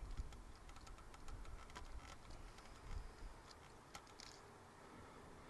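Faint, irregular small clicks and taps of hands starting a 13 mm bolt by hand among engine hoses and wiring, over a low rumble.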